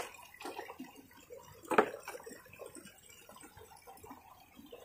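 Plastic toys being handled and set down, with light knocks and rustles and one louder knock about two seconds in, as a toy hammer is put into a toy bus.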